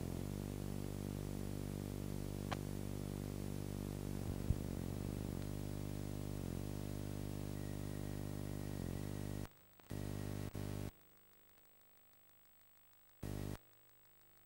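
Steady electrical hum with a stack of overtones and hiss from VHS tape playback and capture before the program starts. It cuts out about nine and a half seconds in, returns twice in short bursts, and leaves only faint hiss.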